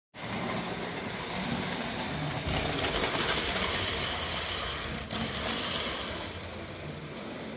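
Model freight train running past on the track and over a girder bridge: wheels rolling and clicking on the rails along with the locomotive's motor. It is loudest from about two and a half to six seconds in, as the cars pass close by.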